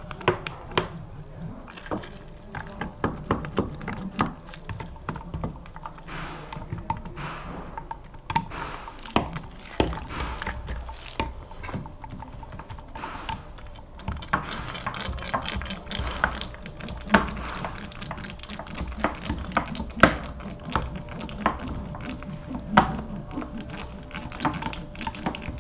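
Fibreglass paddle roller being worked back and forth over resin-wetted glass-fibre mat, rolling out and consolidating the wet laminate: a run of irregular small clicks and ticks.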